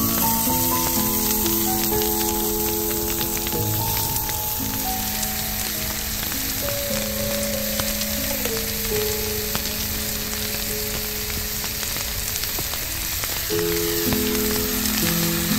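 Mushrooms frying in oil in a cast-iron skillet over a wood fire: a steady sizzle with small crackles, partly from falling snow hitting the hot oil. Background music of slow held notes plays over it.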